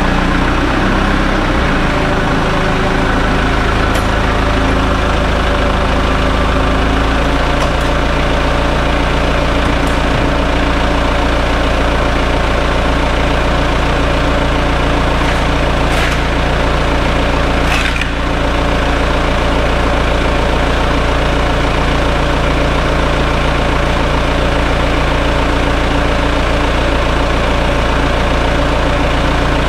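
Forklift engine running steadily, its note shifting about seven seconds in, with a few short clicks along the way.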